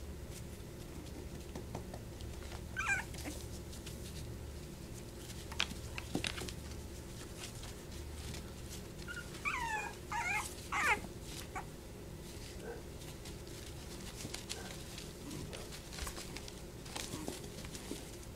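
Young puppies whimpering and yipping in short high-pitched calls, one about three seconds in and a cluster of several around ten seconds in. Between the calls come scattered clicks and scuffles of paws in a plastic tub.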